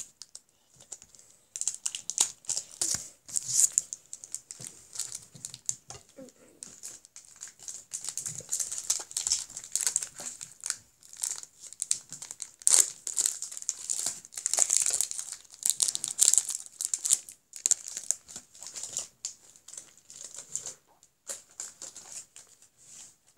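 Foil wrapper of a Pokémon booster pack crinkling and tearing as it is worked open by hand, in irregular crackling bursts with short pauses.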